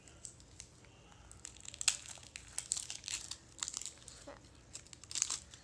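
Toy-surprise wrapping being crinkled and torn open by hand in irregular crackly bursts, loudest about two seconds in and again near the end.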